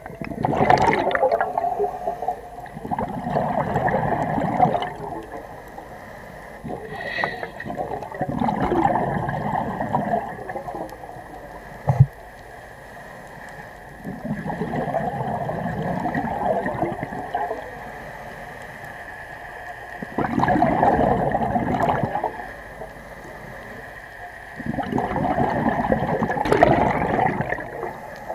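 Scuba diver breathing through a regulator underwater: six bursts of exhaled bubbles gurgling, roughly every five seconds. A single sharp click about twelve seconds in, and a faint steady tone underneath.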